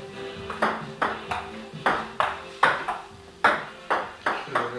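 Table tennis rally: the ball clicks sharply off the paddles and bounces on the tabletop, about a dozen hits in quick pairs of table bounce and paddle stroke.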